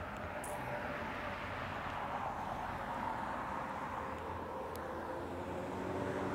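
Steady outdoor background rush, a faint distant mechanical hum like far-off traffic.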